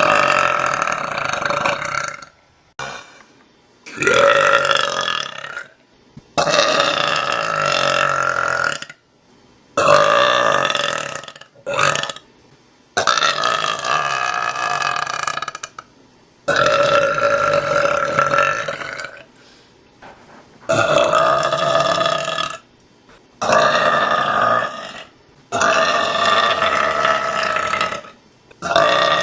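A woman belching over and over: a long run of drawn-out, pitched burps, most lasting about two seconds, with short pauses between them.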